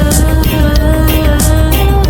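Reggae music with heavy bass and a steady beat, played loudly.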